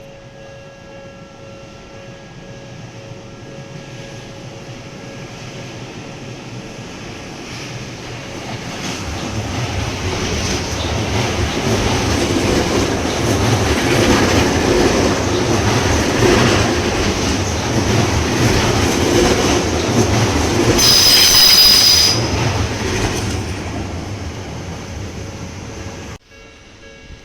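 An Odakyu electric train runs through a level crossing. Its rumble and wheel noise build over several seconds and stay loud for about ten, with a brief high wheel squeal near the peak, then fade. The crossing alarm's steady tones ring underneath, and the sound cuts off abruptly near the end.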